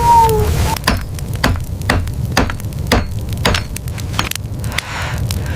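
Irregular sharp knocks and clicks, several a second, over a steady low rumble.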